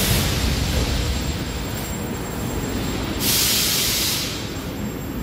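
Metro train standing at the platform with a steady low rumble, and two loud bursts of compressed-air hiss from its pneumatics: one right at the start and one lasting about a second from around three seconds in.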